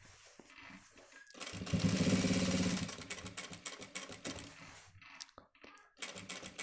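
Industrial lockstitch sewing machine stitching a cuff onto a shirt sleeve in short, slow runs: one run starting about one and a half seconds in and tapering off, then another starting near the end.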